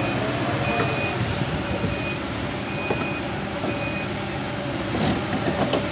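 Kobelco SK220 excavator's diesel engine running steadily while its alarm sounds four short high beeps about a second apart, stopping about four seconds in. A couple of sharp knocks near the end.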